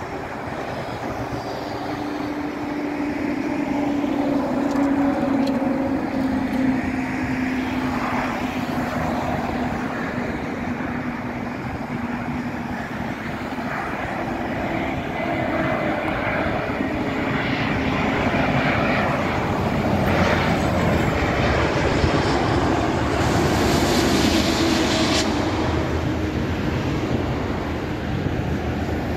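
Airbus A350-900 jet airliner on final approach, its Rolls-Royce Trent XWB engines a continuous rumble with a low hum that drifts slightly down in pitch, growing louder over the first few seconds and staying strong as the jet comes in low over the runway.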